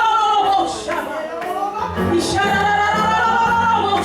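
Music: a woman singing long, held notes that bend in pitch, over a low sustained accompaniment.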